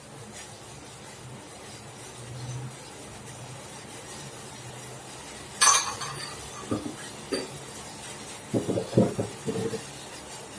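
Kitchen utensils and containers handled while spices are added to the kadha: one sharp clink about halfway through, then several soft knocks and taps.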